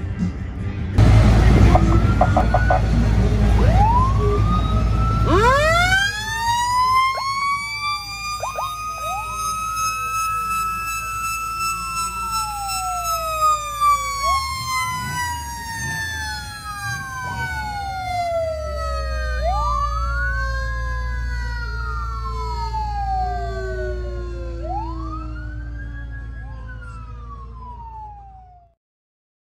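Vintage police car sirens sounding together over a low rumble. A mechanical siren winds up to a high steady pitch and then slowly coasts down, while a second siren wails up and down about every five seconds. The sound fades out near the end.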